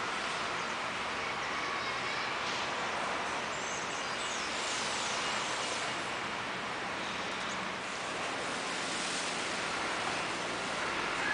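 Steady, even rushing background noise outdoors, with no single sound standing out.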